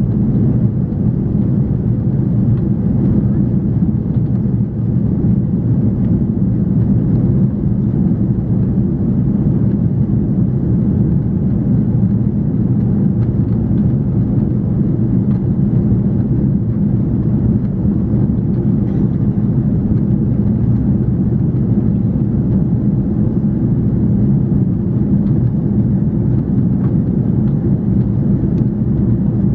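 Steady, loud cabin noise of an Airbus A340-300 airliner, its four CFM56 jet engines and the airflow making an even, low-pitched noise that holds level throughout.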